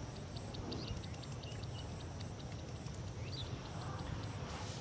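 Open-field ambience: short high chirps repeated rapidly and evenly, about five a second, with one brief sliding chirp past the middle, over a steady low rumble.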